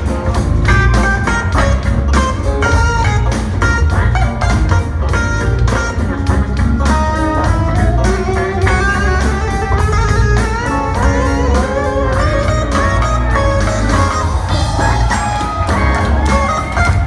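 Live jazz-funk band playing: a drum kit keeping a steady beat under a heavy bass line, with electric guitar and keyboard lines on top. Midway through, the lead line bends and glides in pitch.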